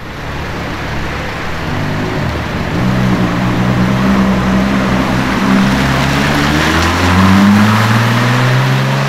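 A supercar's engine accelerating, its note rising steadily in pitch, over the hiss of tyres and spray on a wet road.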